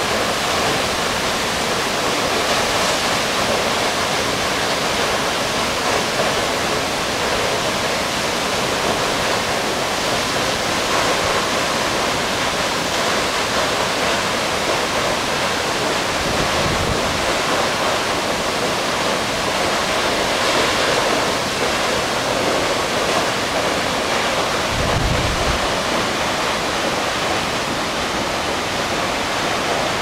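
Shichirigataki waterfall rushing steadily down rock into its plunge pool: a dense, unbroken hiss of falling water.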